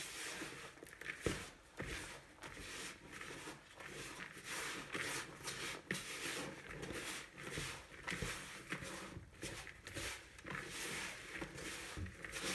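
Hands kneading and squeezing a stiff dough of flour and fat in a plastic mixing bowl: irregular rubbing and scraping with occasional soft knocks against the bowl.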